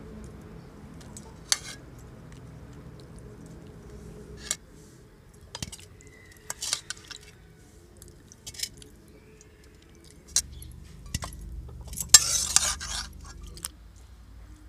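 A metal spoon clinking and scraping against a metal kadai as fish curry is served out: scattered sharp clinks, with the loudest clatter in a cluster near the end.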